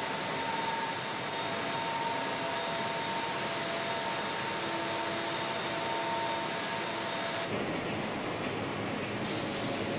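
Steady car-factory machinery noise: an even hiss with faint steady whining tones, changing in character about seven and a half seconds in.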